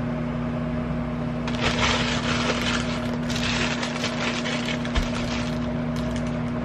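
Corn tortilla frying in a pan of hot vegetable oil, sizzling and crackling, the sizzle swelling about a second and a half in. Under it, the steady hum of a microwave oven running.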